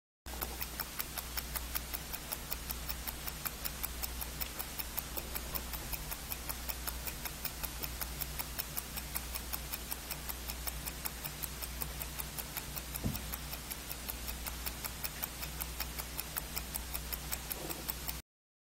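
Mechanical watch movement ticking fast and evenly, about five ticks a second, over a low steady hum, with one louder knock about two-thirds of the way through.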